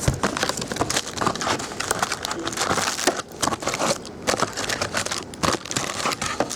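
Foil trading-card pack wrapper crinkling and crackling as it is torn open and handled, with a steady run of sharp clicks.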